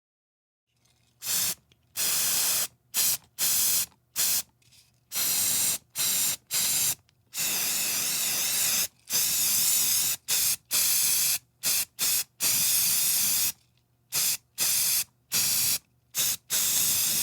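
Aerosol spray paint can being sprayed in a series of separate hissing bursts, some short puffs and some held for a second or more, starting about a second in.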